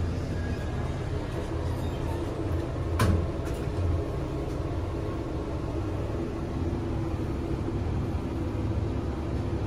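Kone passenger elevator doors sliding shut, ending in a sharp clunk about three seconds in, over a steady low hum as the car sets off downward.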